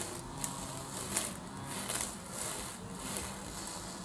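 Small handheld grass trimmer running steadily as its spinning head cuts grass along a curb edge, with irregular ticks and crackles from the clippings.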